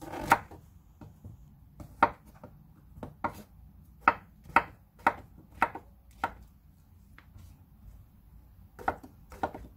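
Chef's knife slicing king oyster mushroom stems on a wooden cutting board: a dozen or so sharp knocks of the blade on the board at an uneven pace, with a pause of about two seconds before the last few cuts.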